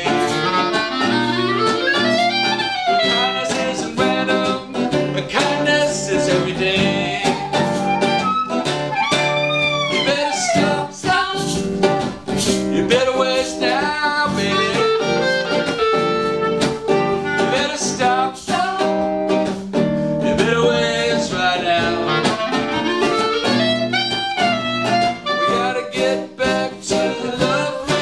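An acoustic band playing an instrumental break in a jazzy folk song: a clarinet plays the lead melody, with bends and runs, over strummed archtop and acoustic guitar chords.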